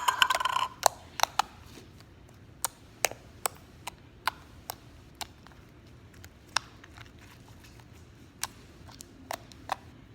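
Bubblegum slime being handled by hand, giving sharp little pops and clicks at irregular intervals, with a louder squelchy burst at the very start.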